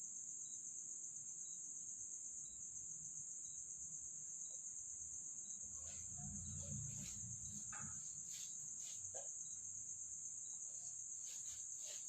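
Crickets chirring in a steady high trill, with a faint tick about once a second. From about halfway in, scattered faint clicks and knocks come and go.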